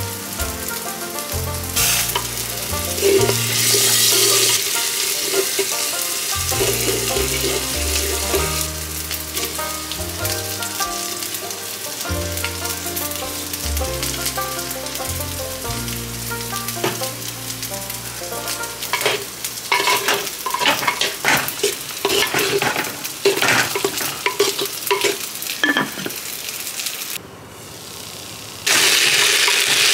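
Masala frying and sizzling in a clay pot, over soft background music with slow held bass notes. Through the second half there is a run of sharp clicks and scrapes from stirring. Near the end the sound drops for about a second, then the sizzling comes back louder.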